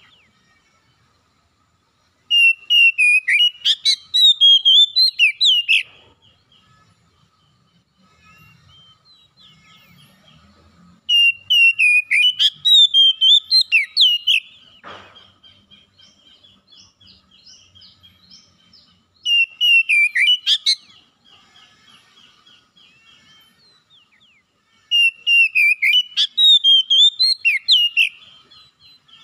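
Male Oriental magpie-robin singing: four loud phrases of fast, warbling whistles, each a few seconds long, with softer twittering between them.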